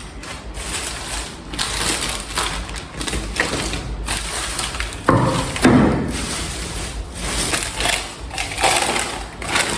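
Rummaging through a shopping bag: packaging crinkling and rustling, with a louder handling bump about five seconds in.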